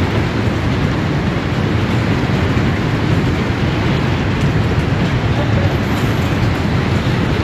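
Steady, dense roar of a hailstorm heard from inside a large glass-walled hall, with ice and rain pounding on the roof and glass.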